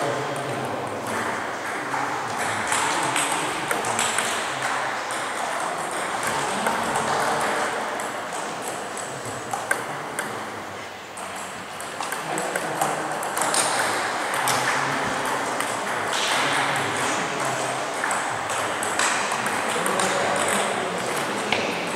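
Table tennis balls clicking off paddles and tables in quick rallies, with background chatter from people in the hall.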